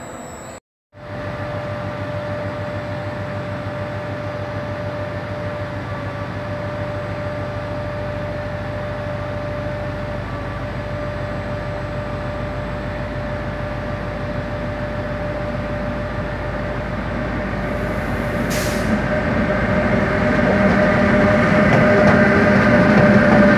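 Trenitalia E.402B electric locomotive hauling an Intercity train, approaching and passing close along the platform, growing steadily louder toward the end, with a steady whine underneath. The sound drops out briefly under a second in.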